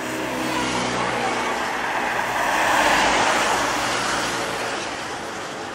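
A motor vehicle passing on a wet road: the hiss of tyres on wet asphalt swells to a peak about three seconds in and then fades, with a steady engine tone at the start.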